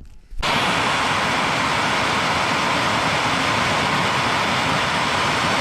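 A gas torch flame burning with a loud, steady rushing noise that starts suddenly about half a second in, used to heat-colour titanium bolts.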